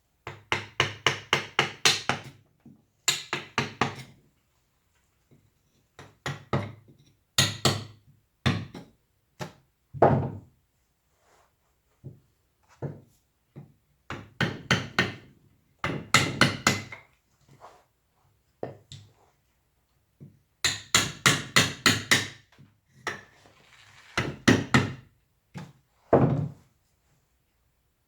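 Carving chisel being tapped into wood with a mallet: quick runs of sharp knocks, several a second, broken by short pauses.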